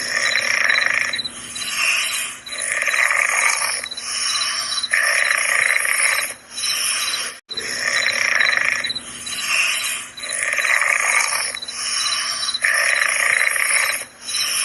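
Soft snoring: slow noisy breaths in and out, a full breath about every two and a half seconds, over steady cricket chirping. The sound cuts out for a moment about halfway through.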